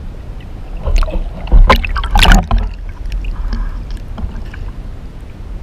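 Muffled underwater rumble, then water splashing and sloshing as a spearfisher comes up through the surface. The splashes are loudest in a cluster about one to two and a half seconds in, then settle to a lapping wash.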